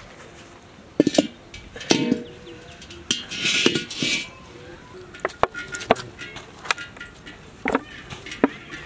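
Large iron kadai clanking and knocking as it is set on the fire stones and handled, a series of sharp metal knocks and clinks, some ringing briefly, with a short hiss about three seconds in.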